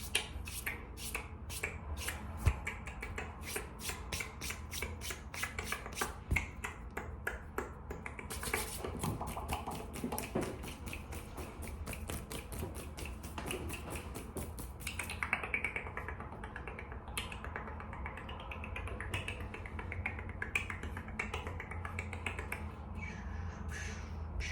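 Rapid finger snapping and hand clicks close to the microphone, several snaps a second and densest about halfway through. After about fifteen seconds they give way to sparser, softer clicks.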